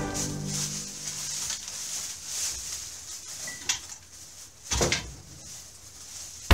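Iron weight plates knocking and clunking as they are loaded into a plastic grocery bag hanging from a luggage scale, with the bag rustling. There are a few sharp knocks, and one heavier thud comes near the end.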